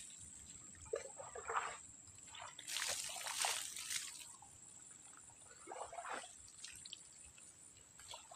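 Water being poured and splashed over a dog being bathed, in three short bursts with quieter trickling between them.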